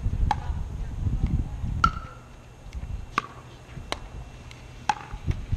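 Pickleball rally: paddles striking the hollow plastic ball five times, about once a second, each hit a sharp pock, several with a short ring. A low rumble runs under the first two seconds.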